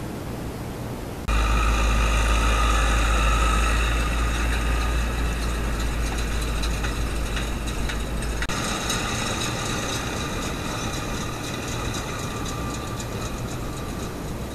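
Steady trail-camera hiss, then from about a second in a farm tractor running close by as it pulls hay equipment, a steady low engine rumble with whining tones over it. About eight seconds in the rumble drops and the tractor and large square baler carry on more quietly.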